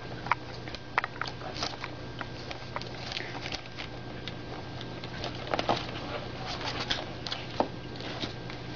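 Pug puppies scuffling as they play: irregular light taps and clicks, some sharper than others, over a low steady hum.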